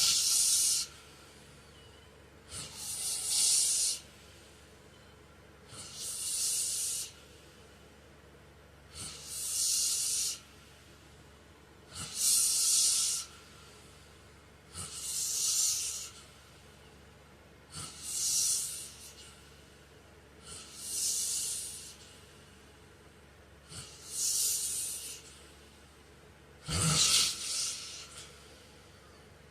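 A sleeping man's snoring breaths, each a hissing rush of air about a second long, repeating roughly every three seconds. Near the end one snore comes out deeper.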